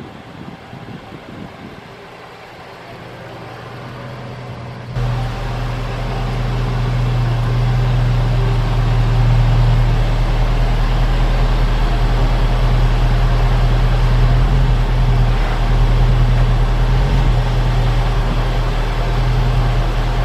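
Jaguar XFR's supercharged V8 idling in a garage: a steady, deep hum that comes in suddenly about five seconds in.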